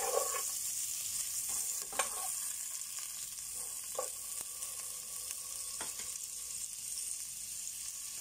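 Butter sizzling as it melts in a hot nonstick pot, with a spatula knocking and scraping against the pot a few times.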